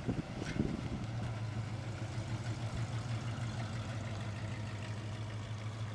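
1973 Plymouth Road Runner's 400 V8 idling steadily, after a few uneven low thumps in the first second.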